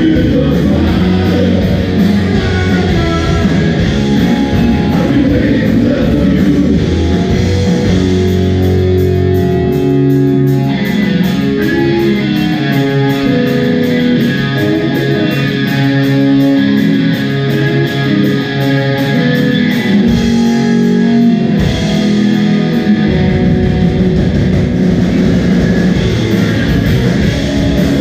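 Live rock band playing: distorted electric guitars, bass guitar and drums. About ten seconds in the low end thins out, and the full band comes back in near the end, a little past twenty seconds.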